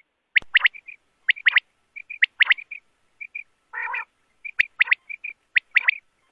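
Common quail (batair) calling: sharp, high three-note phrases repeated about once a second, with soft short chirps between. One lower, rough note comes a little before four seconds in.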